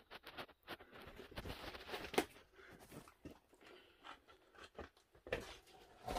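Crunching and clattering of loose broken stone under someone moving through a cave, in irregular scrapes with a few sharper knocks, the loudest about two seconds in.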